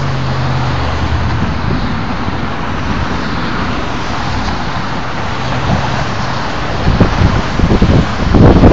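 Steady road traffic noise from cars passing in the adjacent lanes, with a low engine hum in the first second or so. Wind buffets the microphone in gusts near the end.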